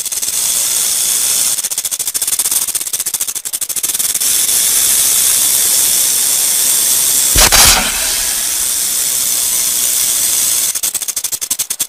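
Rattlesnake's tail rattle buzzing without a break: a dry, hissing rattle made of very rapid clicks, the snake's warning sound. Past the middle there is one short, louder burst.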